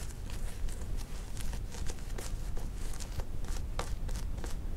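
Shaving brush being worked over a lathered, stubbly face, giving a quick run of irregular, short, scratchy strokes.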